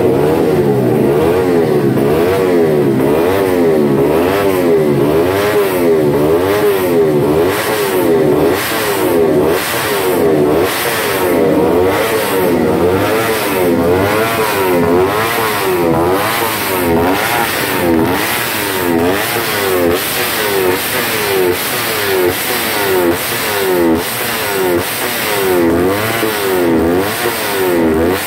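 A Yamaha underbone race bike's single-cylinder engine is revved hard on its stand. The throttle is blipped over and over, so the pitch climbs and drops back about once a second.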